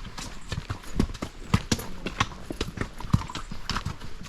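Horse hooves clip-clopping, a quick uneven run of sharp knocks.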